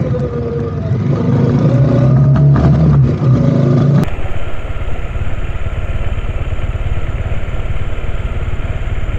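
Motorcycle engine running on a rough dirt road, its pitch rising a little over the first few seconds. About four seconds in, the sound cuts suddenly to a steadier, noisier engine sound.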